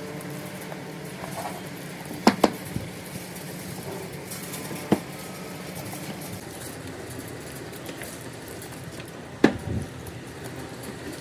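Cast metal brake cylinder bodies being handled and set down on a wooden workbench: a few sharp knocks and clinks, a pair about two seconds in, one near five seconds and the loudest near nine and a half, over a steady background hum.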